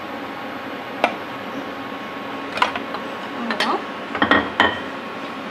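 Metal clinks and taps from a stainless steel puttu tube and utensils against a plate as steamed puttu is pushed out. There is one sharp click about a second in, then a cluster of clinks from about two and a half seconds in, over a steady hiss.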